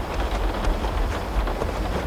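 Steady rain: an even hiss over a low rumble, with faint light ticks scattered through it.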